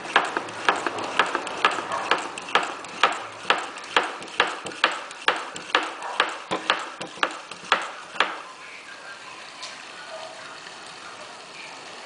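Hand-operated vacuum fluid extractor being pumped, a sharp click with each stroke about twice a second, building vacuum to draw water up the hose; the pumping stops about eight seconds in.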